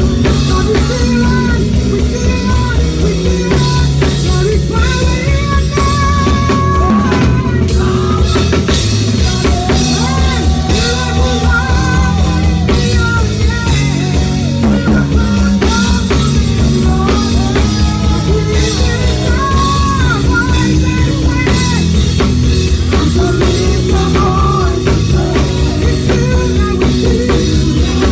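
Live worship band music with a drum kit played close by, keeping a steady driving beat over a moving bass line, with singing and a melodic instrument above.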